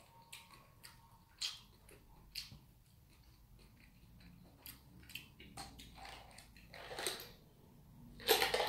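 A person chewing gimbap with closed mouth, making scattered soft mouth clicks, then a sip from a paper cup near the end.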